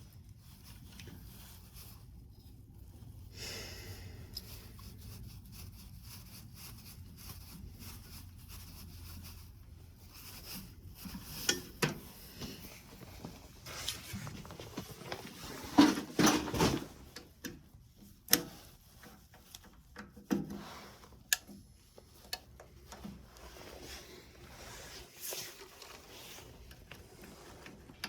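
Scattered clicks, taps and light knocks of hand work on a furnace's metal parts, thickest and loudest in the middle, over a low steady hum.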